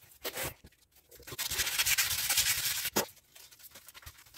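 Alloy wheel rim being sanded by hand: a brief pause, then about a second and a half of fast scratchy rubbing strokes, a sharp tap, and lighter scratching near the end.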